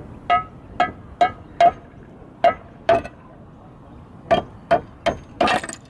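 Hammer tapping a roof tile about ten times in uneven groups, each tap giving a short metallic ring: knocking the tile apart along a scored cut line.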